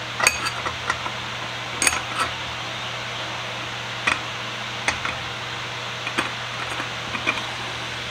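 Brass tube of a solvent dispensing can being fitted and turned into its polished metal base by hand, giving a handful of light metal clicks and clinks at irregular intervals over a steady fan hum.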